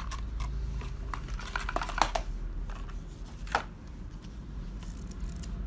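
Small handling noises: scattered light clicks and rustles as the fitness band, its rubber strap and the box contents are handled, with two sharper clicks about two and three and a half seconds in.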